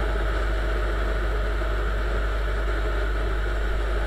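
Viper 200 motorcycle's single-cylinder engine running steadily at cruising speed, heard from the rider's seat with a steady wind rumble on the microphone.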